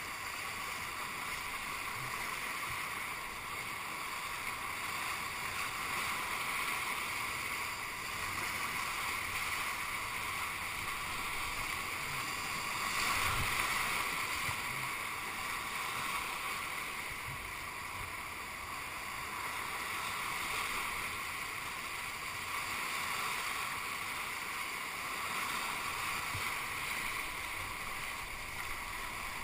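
Whitewater rapids rushing steadily around a kayak on a high-flow river, swelling louder about 13 seconds in as the boat punches through a wave, with a few low thumps.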